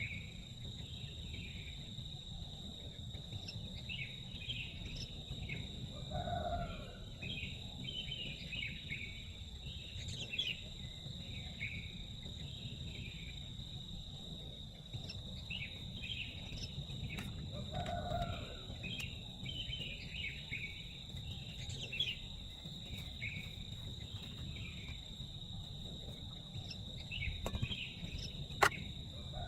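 Forest ambience: insects keep up a steady high-pitched trill while birds give repeated short chirps, over a low steady rumble. A couple of sharp clicks come near the end.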